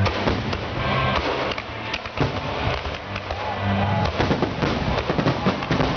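Aerial fireworks shells bursting in quick succession: a dense run of bangs and crackles, with music heard alongside.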